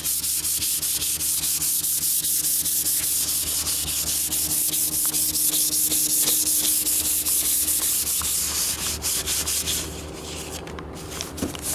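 400-grit sandpaper rubbed by hand over a painted car hood in quick, regular back-and-forth strokes, about three or four a second, scuffing the fresh paint to rough it up for another coat. The strokes ease off about ten seconds in.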